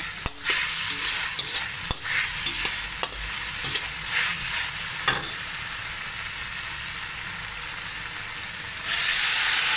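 Beef, onion and garlic sizzling in a wok while a plastic spatula stirs and scrapes them, with clicks of the spatula against the pan during the first five seconds. About nine seconds in the sizzle jumps louder as the blanched vegetables go into the hot wok.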